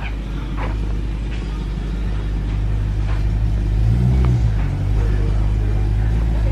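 BMW E92 M3's S65 V8 idling on its stock exhaust with a low, steady rumble, rising briefly in a small rev about four seconds in.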